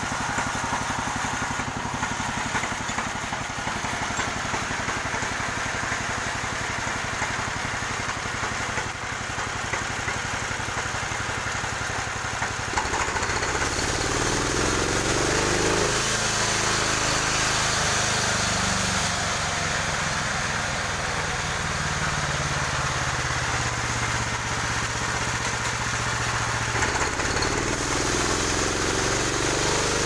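A portable band sawmill's engine running steadily. About 13 seconds in it gets louder and its pitch shifts and wavers as the band blade is pushed along through a log.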